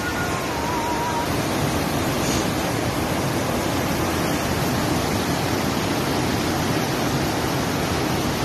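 Flash-flood water rushing in a muddy torrent: a steady, loud rushing noise with no let-up.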